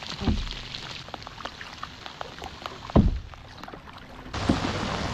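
A canoe being paddled in the rain: scattered raindrops tick on the hull and the camera, with two low thumps from the paddling, the second the louder. Near the end a steady hiss of heavy rain on the river sets in suddenly.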